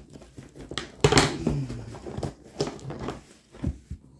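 Scissors cutting and scraping into the packing tape and cardboard of a parcel: a few short, irregular bursts of scraping and rustling, the loudest about a second in.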